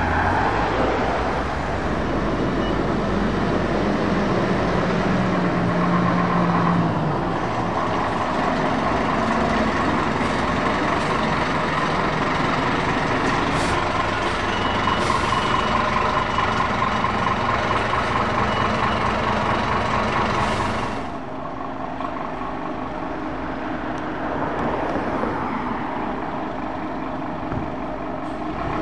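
Heavy road vehicle's engine running in traffic, with a few short hisses; the sound drops in level and changes about 21 seconds in.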